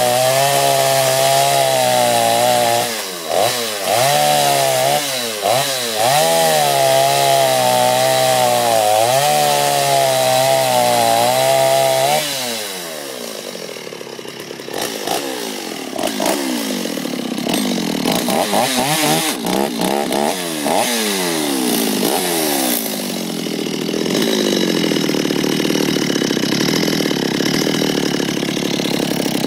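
Stihl 021 two-stroke chainsaw cutting through a log at full throttle for about twelve seconds, its pitch dipping briefly several times as it loads in the cut. It then drops off, is revved up and down a few times, and runs steadily again near the end.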